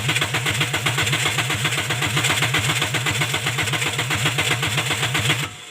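Toyota Corolla XLi's starter motor cranking the engine in steady, even pulses without it catching, then stopping abruptly near the end. This is the overlong cranking of its hard-start fault, which the mechanic traces to a cam/crank sensor signal failure.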